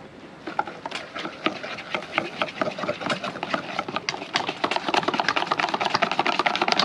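A wire whisk beating thick batter in a stainless steel mixing bowl: rapid rhythmic clicking and scraping of the wires against the bowl, getting faster and louder in the second half.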